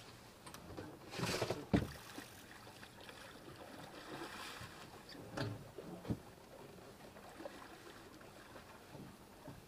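Handling noises on a small boat: a rustling scrape and a sharp knock about two seconds in, then a few lighter knocks, over a steady hiss of water and wind.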